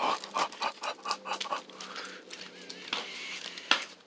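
Dog panting fast and hard, about five breaths a second, easing off after about a second and a half, with one sharp tap near the end.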